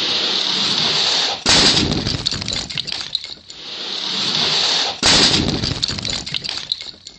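A Lego train rolls down a plastic track, its rolling noise growing louder, then slams into a glass pane with a sharp crash and a clatter of Lego bricks scattering. This happens twice: once about a second and a half in, and again about five seconds in, each time dying away in rattling debris.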